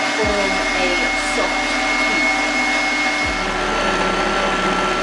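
Kenwood stand mixer running at speed, its whisk beating egg whites in a stainless steel bowl under a plastic splash guard: a steady motor drone with a high whine that shifts lower about three and a half seconds in.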